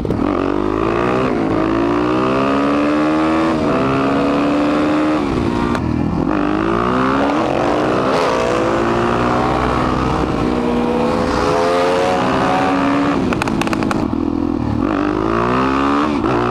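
Suzuki DR-Z400SM's single-cylinder engine accelerating hard, its pitch climbing and dropping back again and again as it shifts through the gears, with a second supermoto running close by.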